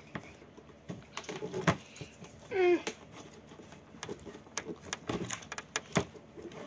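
Scattered taps and clicks of small objects handled on a tabletop, with one short child's vocal sound falling in pitch about two and a half seconds in.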